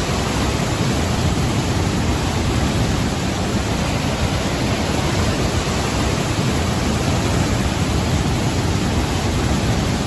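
A river in flood rushing: a steady, loud wash of fast floodwater that does not let up.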